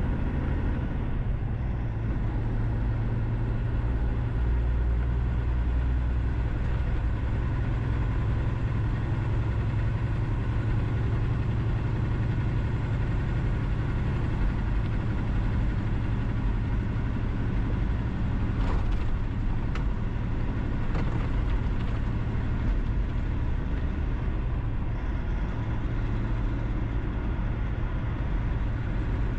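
Steady driving noise of a vehicle cruising on a highway: a constant low rumble of engine and tyres on the road, with a few brief clicks about two-thirds of the way through.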